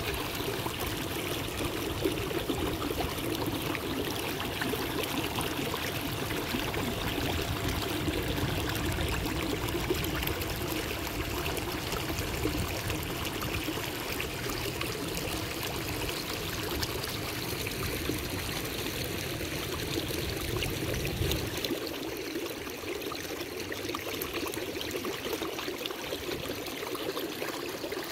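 Steady water sounds from a kayak being paddled: trickling and splashing from the paddle and along the hull. Under it runs a low rumble that drops away abruptly about three quarters of the way through.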